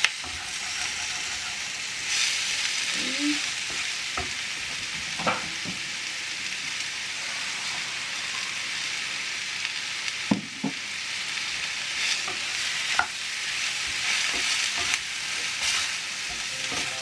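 Spice-coated chicken pieces with onions and bell pepper sizzling steadily as they fry in a frying pan. A wooden spatula stirs and scrapes through them, with several sharp knocks against the pan.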